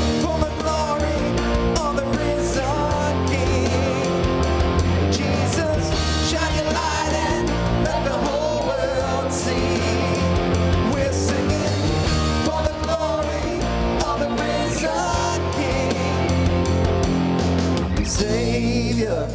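Upbeat church worship music with a steady beat and singing over it.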